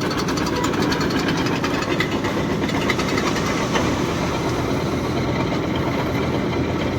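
A machine engine running steadily, with a fast, even rattle over it.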